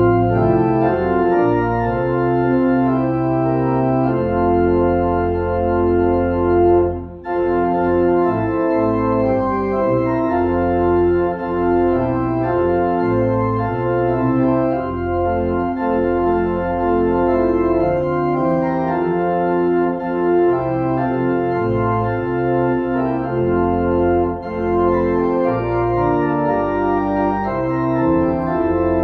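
Church organ playing a slow piece in sustained chords that change every second or two, starting abruptly, with a brief break about seven seconds in.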